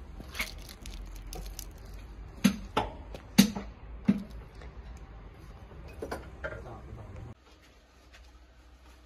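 A handful of sharp knocks over a low steady hum, the loudest four coming in quick succession between about two and a half and four seconds in. The hum cuts off suddenly a little past seven seconds, leaving a much quieter background.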